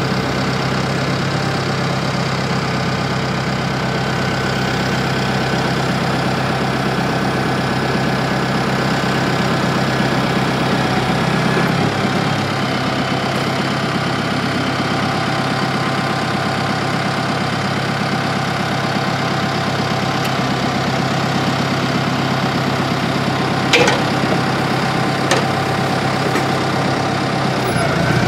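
Tractor diesel engine running steadily at idle while a twin-rotor hay rake is hydraulically lowered from its raised transport position. The engine note shifts slightly about halfway through, and two short knocks a little over a second apart come near the end as the rake's frame settles.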